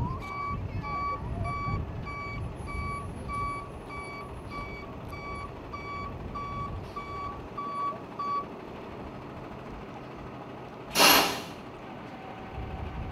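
A heavy vehicle's back-up alarm beeping steadily about twice a second over a low engine rumble, stopping about eight and a half seconds in. Near the end comes one short, loud hiss of air from its air brakes.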